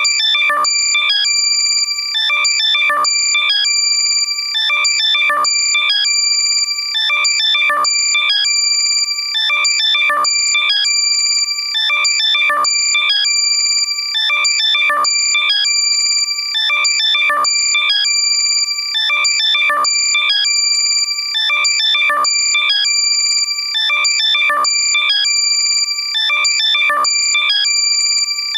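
Loud, compressed electronic alert tone of the kind played to locate lost AirPods: high-pitched steady tones with quick chirping notes, repeating in a cycle about every two and a half seconds.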